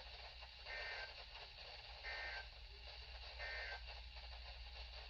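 Faint hiss of a weather radio receiver on dead air over a low hum, broken by three short high beeps evenly spaced a little over a second apart.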